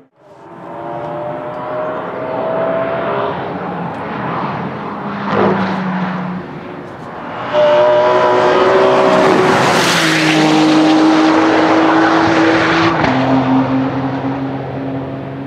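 Ferrari 599 GTB Fiorano HGTE's V12 accelerating hard, its note climbing through the gears and dropping at each upshift. About eight seconds in it gets much louder as the car passes close, then falls to a lower steady note.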